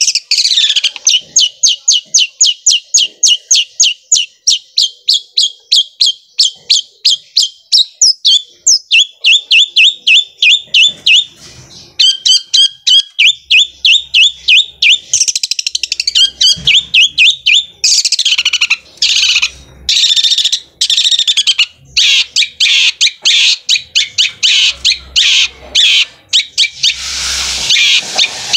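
Long-tailed shrike (cendet) singing loudly in a fast run of sharp, evenly repeated notes like a sewing machine, then quicker rattling trills and mixed phrases.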